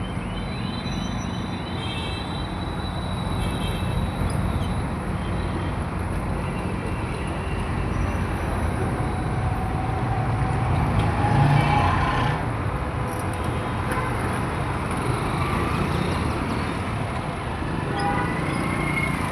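Road traffic: a steady rumble of passing vehicles, with occasional short horn toots.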